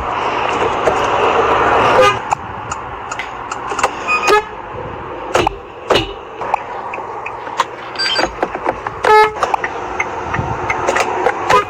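Car horns giving short honks, brief toots about four, eight and nine seconds in, the one near nine seconds the loudest. Steady noise and scattered clicks run underneath.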